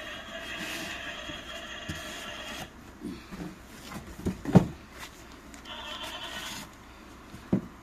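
Unboxing handling sounds: rubbing and scraping of packaging and parts, with a sharp knock about four and a half seconds in and another near the end.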